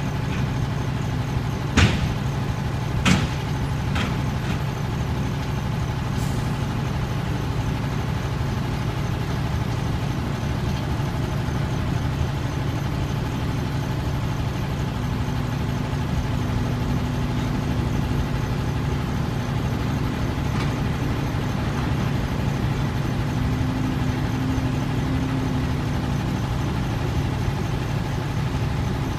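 Heavy diesel engines of an off-road dump truck and an excavator running steadily with a low rumble. Two sharp knocks about two and three seconds in, the loudest sounds, with a weaker one just after.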